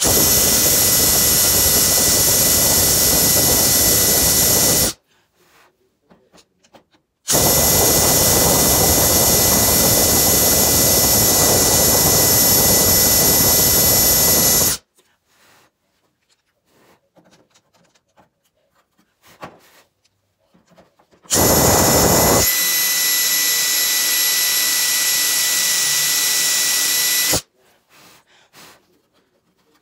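Cordless drill driving a Forstner bit, boring flat-bottomed holes in three runs of steady motor whine and cutting noise, about five, seven and six seconds long. The last run drops to a lighter, steadier whine after its first second.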